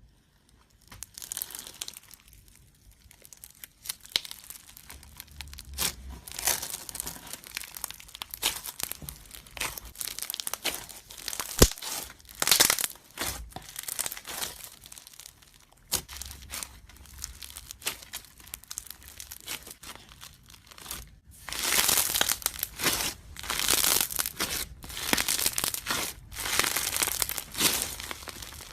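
Slime being squeezed and stretched by hand, giving a dense run of sticky crackles and pops. One sharp click about twelve seconds in, and louder, denser crackling near the end.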